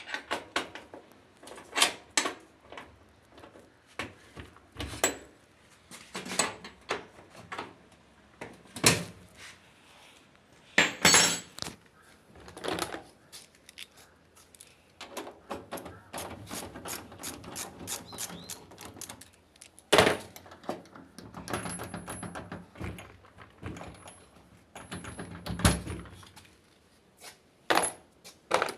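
Irregular clicks, knocks and clinks of hard parts and tools being handled and set down, with a stretch of softer scraping about midway.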